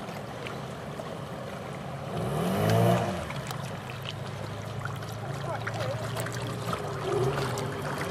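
Small boat's outboard motor running at low speed, rising and falling in pitch once about two and a half seconds in as the throttle is worked, with water splashing around the hull.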